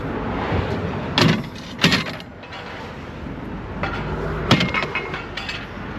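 Heavy equipment at a roadwork site: a machine's engine running steadily, with several sharp bangs and knocks, three of them loudest, about a second, two seconds and four and a half seconds in.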